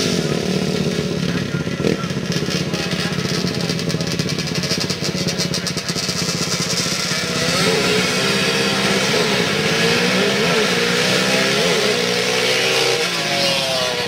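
Quad ATV engines running and revving at a grass drag strip, the pitch repeatedly climbing and dropping in the second half.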